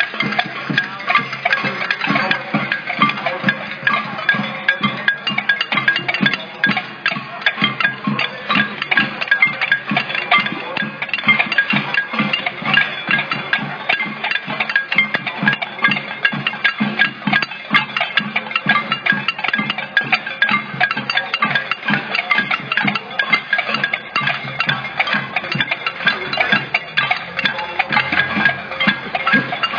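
Loud music with fast, dense percussive hits running throughout.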